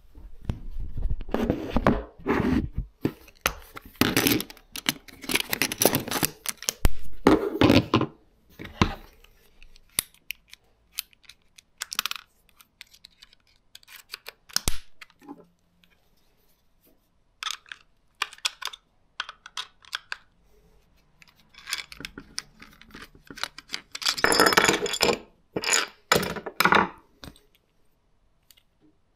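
Handling noise from camera gear: bursts of rustling with scattered sharp clicks and light knocks as a camera and its accessories are moved and fitted by hand.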